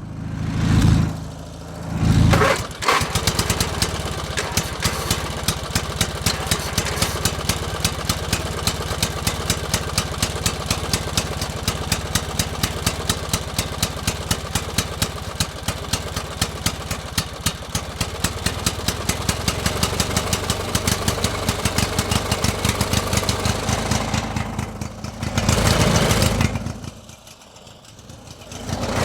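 A motor with two short low bursts at the start, then catching and running with a steady, rapid firing beat. Near the end it swells louder, dips briefly and picks up again.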